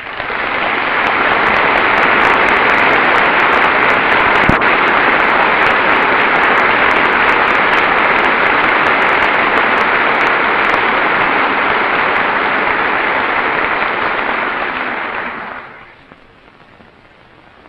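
Large audience of members of Congress applauding, a long, steady burst of clapping that starts at once, holds for about fifteen seconds and then dies away.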